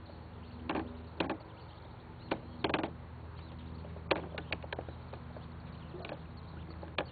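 Ducklings peeping in short, scattered calls, over a steady low hum.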